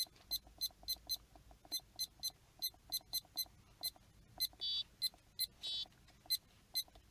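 Lowrance AirMap 2000C GPS navigator beeping as its keypad buttons and joystick are pressed one after another, confirming that the repaired keys register. It gives a rapid, irregular run of short high beeps, two or three a second, with two slightly longer warbling tones about halfway through.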